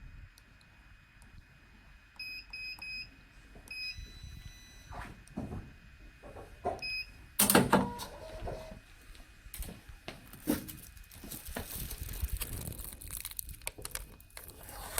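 Electronic keypad beeps from a solder paste thawing cabinet: a quick run of four short beeps, then single beeps, as buttons are pressed. Between them come clicks and knocks of handling, a louder clatter about seven and a half seconds in, and crinkly rustling near the end.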